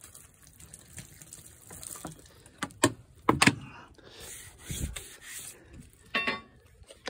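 Water being poured and splashing over a freshly sawn wooden slab, with a few sharp knocks, the loudest about three seconds in.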